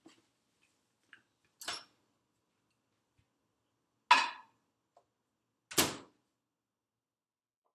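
Microwave oven door being handled: three short clunks about two seconds apart, the last the longest.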